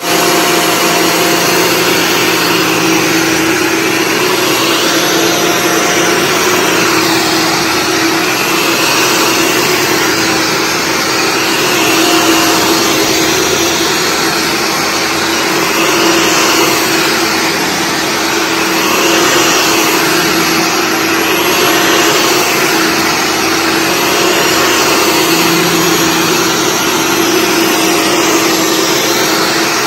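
Shark Stratos upright vacuum running on carpet: a steady motor hum and rushing air with a constant tone, swelling and easing gently every couple of seconds as it is pushed back and forth.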